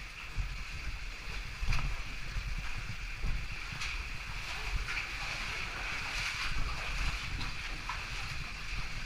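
Handling noise from a helmet-mounted camera as a caver moves through a tight rock passage: a steady low rumble and rubbing, broken by a few sharp knocks and scrapes against the rock.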